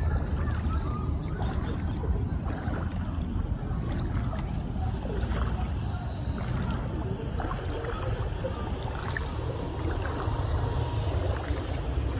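Honda motorcycle engine idling steadily with a low, even sound.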